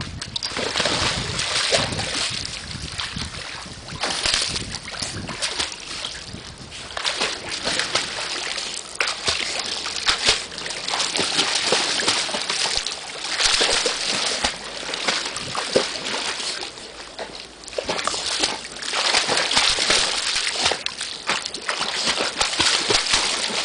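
A yellow Labrador retriever swimming and paddling hard in a pool, its legs splashing and sloshing the water continuously in uneven surges.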